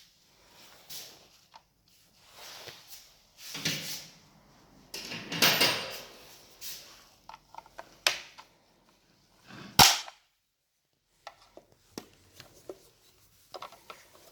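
Handling noises from a new chainsaw and its packaging: rustling with irregular clicks and knocks, the loudest a sharp knock about ten seconds in.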